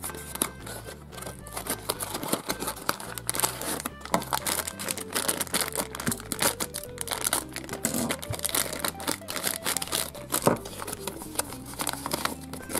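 A plastic bag and cardboard packaging crinkling and rustling as they are opened and handled, a dense run of small crackles, over background music.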